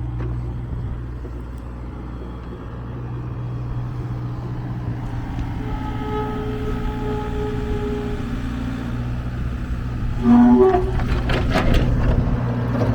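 Kubota U48-4 mini excavator's diesel engine running steadily, with a faint whine rising in the middle as the hydraulics work. About ten seconds in there is a short, loud, horn-like blast, then a few sharp clanks.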